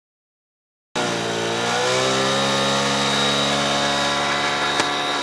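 Motorcycle engine running steadily, its exhaust blowing into a balloon fitted over the silencer; the sound starts abruptly about a second in and holds an even pitch.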